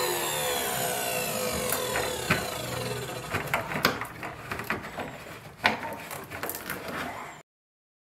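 Vacuum cleaner motor winding down after being switched off, its whine falling in pitch and fading over the first few seconds. Then a cloth rubs around the refrigerator's compressor and tubing, with a few sharp knocks, until the sound cuts off suddenly near the end.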